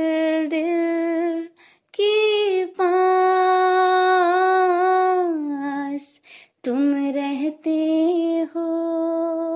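A woman's voice singing long, held notes without words over barely any accompaniment, in several phrases separated by short breaths. This is the closing vocal line of a Hindi film song.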